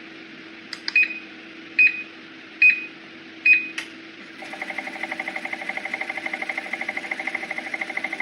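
Walking pad treadmill's control panel beeping four times in quick succession, each short high beep with a faint click, over the steady hum of its running belt motor. About halfway through, background music with a fast pulsing beat comes in.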